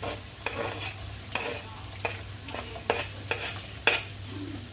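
Chopped onion frying in hot sunflower oil in a frying pan, with a light sizzle, while a wooden spoon scrapes and taps against the pan in a string of short knocks about twice a second.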